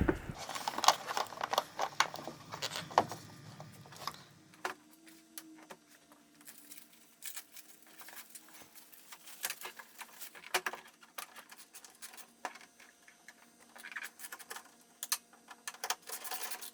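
Scattered light clicks, taps and rattles of small plastic and metal parts being handled while working on a headlamp socket and its wiring, busier in the first few seconds.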